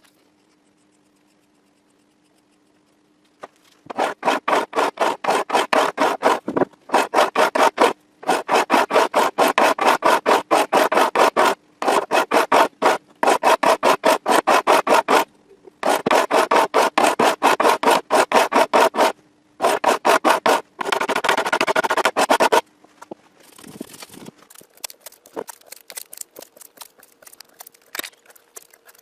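Fret levelling on an acoustic guitar: quick back-and-forth abrasive strokes along the worn, dinged metal frets, about four a second, in runs of a few seconds with short pauses. The strokes start about three seconds in and turn lighter and softer near the end.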